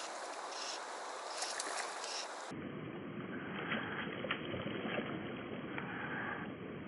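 Running river water with splashing from a hooked cherry salmon thrashing at the surface. About two and a half seconds in the sound turns lower and duller, like audio slowed down.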